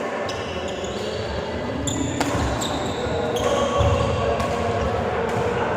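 Play on an indoor court: several sharp hits at irregular moments and short, high shoe squeaks on the floor, echoing in a large hall.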